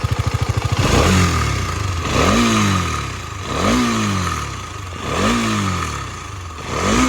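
KTM Duke 250 single-cylinder engine idling, then blipped five times, each rev rising fast and falling back toward idle, with a steady high-pitched whine underneath. The owner reports a slight engine noise that comes only when the revs are released.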